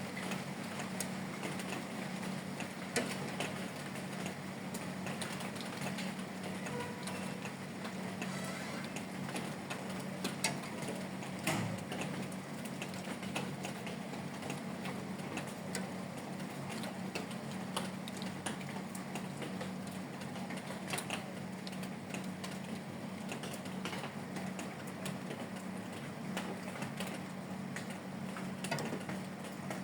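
Light rain falling, with drops tapping irregularly on hard surfaces as scattered clicks over a steady hiss. A steady low hum runs underneath.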